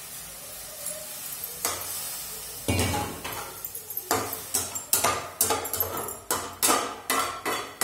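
Grated carrots sizzling in a steel pan on a gas stove. From about three seconds in, a metal spatula stirs and scrapes against the pan in quick clanking strokes, about three a second.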